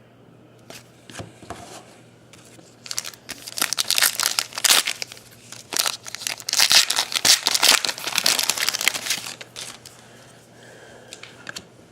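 A trading card pack wrapper being torn open and crumpled, a dense crackling rustle lasting several seconds, after a few light clicks.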